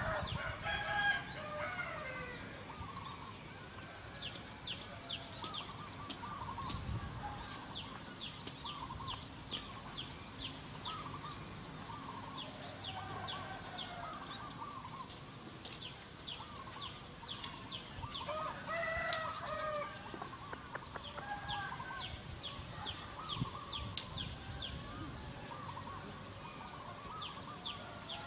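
Domestic chickens clucking on and off, with one louder, longer call about two-thirds of the way through. Small birds chirp in quick, thin, high notes throughout.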